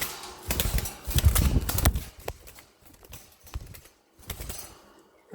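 Parrots' beaks clicking and tapping irregularly as the birds eat and feed each other, with a low rumble in the first two seconds.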